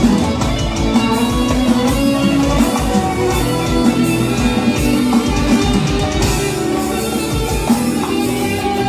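Band music with a steady drum beat and plucked-string instrument lines.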